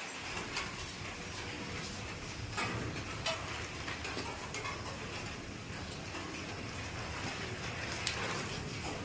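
A steady hiss with a few scattered light clicks and knocks as small puja items are handled on a plate.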